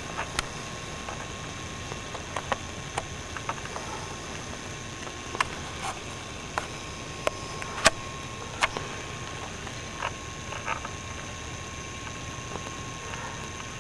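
Steady hiss with a faint high steady whine, broken by scattered sharp clicks and ticks, the loudest about eight seconds in: a handheld video camera's own running noise and handling clicks.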